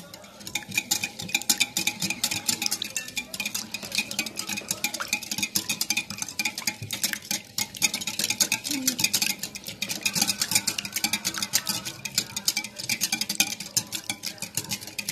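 A hand whisk beating eggs, milk and oil in a glass bowl, clicking rapidly and steadily against the bowl's sides.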